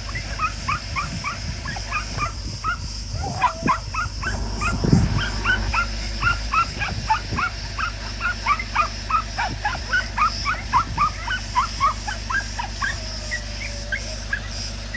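Puppies whimpering and yipping, short high squeaks about two or three a second, kept up throughout. A louder low thud comes about five seconds in.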